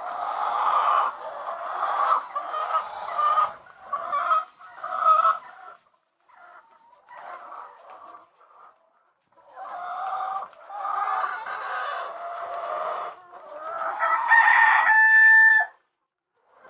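A flock of caged White Leghorn laying hens clucking and cackling, with a louder drawn-out call near the end that cuts off suddenly.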